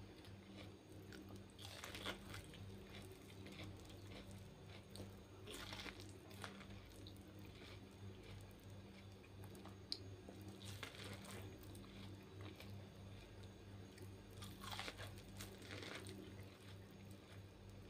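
Biting kernels off a boiled corn cob and chewing them, in a few short crunchy bursts, over a steady low hum.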